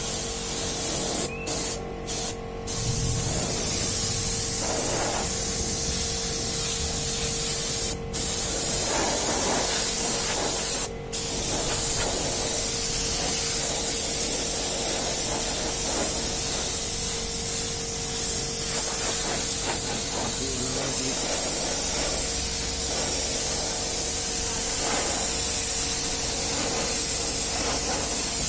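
Compressed-air spray gun hissing steadily as it sprays paint onto a truck body. It cuts off briefly a few times in the first seconds and twice more later, where the trigger is let go. A steady hum runs underneath.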